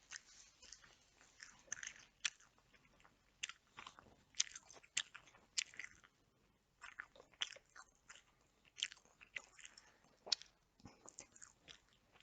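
Close-miked chewing and biting of Nando's chicken, with irregular sharp mouth clicks and smacks several times a second.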